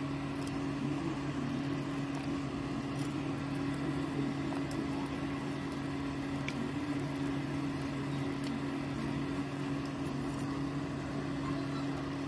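A steady low hum, with a few faint clicks of a metal spoon stirring dry flour in a bowl.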